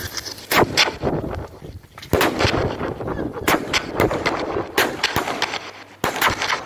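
Thunderbolt 25-shot barrage firework cake firing: about ten sharp, loud bangs as shells launch and burst, unevenly spaced at a slow pace, some in close pairs.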